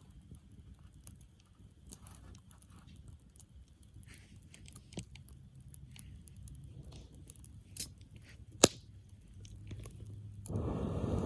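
Wood campfire crackling softly with scattered small pops and two sharp snaps late on. Near the end a loud, even rushing noise comes up.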